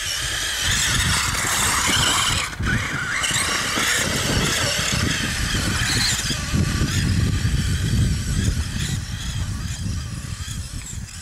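Brushless Traxxas E-Maxx RC truck's twin electric motors whining, the pitch rising and falling with the throttle as the studded tyres churn through deep snow, over a low rumble. The whine drops out briefly about two and a half seconds in.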